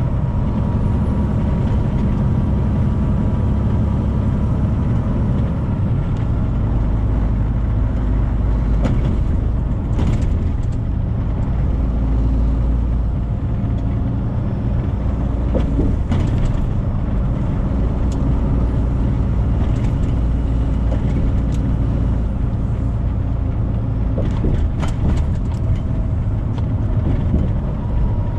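Inside the cab of a 2018 Freightliner semi truck at highway speed: a steady low engine and road drone, with a few brief knocks or rattles from bumps in the road.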